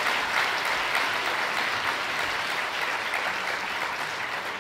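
A hall audience applauding, a dense patter of many hands clapping that gradually fades toward the end.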